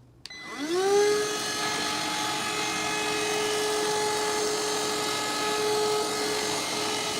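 Handheld cordless vacuum cleaner with its crevice tool fitted switched on: the motor spins up with a rising whine within the first second, then runs at a steady high whine with rushing air.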